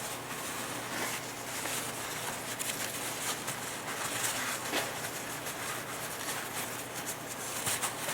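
Soft rustling and small taps from hands working on a partly dismantled ATV engine, over a faint steady low hum.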